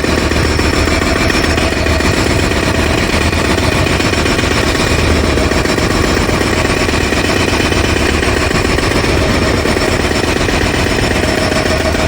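Jackhammer breaking up the ground, hammering continuously at a rapid rate without a pause, with a steady low hum underneath.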